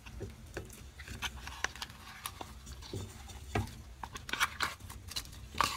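Thick, stretchy slime sliding and peeling out of a jar into a mixer bowl: scattered soft sticky clicks and small crackles, with a louder cluster about four seconds in and another near the end.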